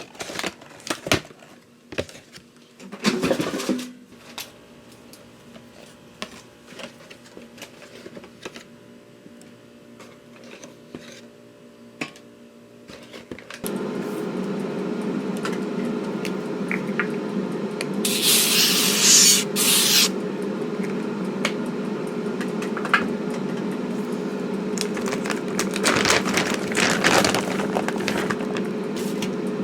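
Scattered clicks and handling noises, then an appliance's steady motor hum starts abruptly about halfway through and keeps running, with a brief hiss a few seconds after it starts.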